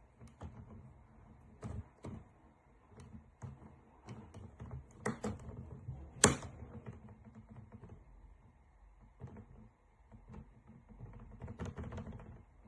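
A metal quick-release monitor mount being handled: scattered clicks and taps, with one sharp click about six seconds in.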